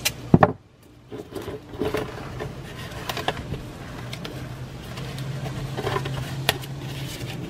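Rubber-gloved hands handling a plastic container and pressing masking tape down over a cardboard band around it: a sharp click shortly after the start, then scattered light rubs and taps. A faint low hum runs in the background in the second half.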